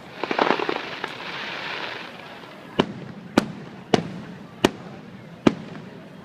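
Fireworks show: a quick cluster of small pops near the start, then five sharp bangs of shells bursting, each well under a second after the last, from about halfway through.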